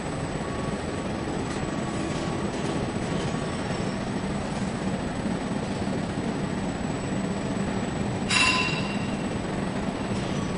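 Steady industrial noise with a low hum from arc welding of a steel tank under a column-and-boom welding manipulator on a welding rotator. About eight seconds in comes a short, high metallic squeal.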